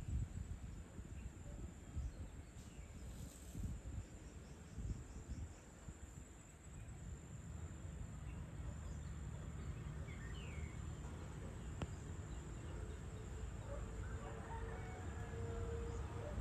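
Outdoor evening ambience of insects trilling steadily, with low rumbling in the first few seconds. A brief bird chirp comes about ten seconds in, and a faint steady hum comes in near the end.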